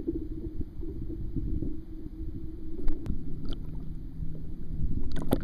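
Water sloshing around a waterproof action camera held at the surface beside a canoe, heard as a low steady rumble. A few sharp taps and splashes come about three seconds in, and a louder cluster comes near the end.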